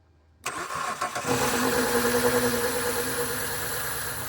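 Car engine cranking and catching about half a second in, then running steadily, a little faster at first and then easing down toward idle. It fires right up.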